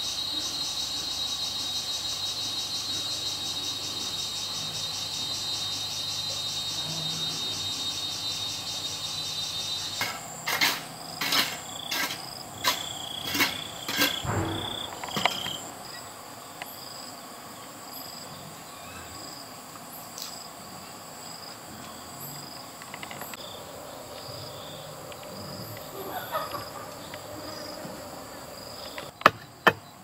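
Insects chirping in a steady, fast-pulsing high drone that stops about a third of the way in. A run of sharp, hard knocks follows over about five seconds. Near the end, quick knocking starts at about three strikes a second.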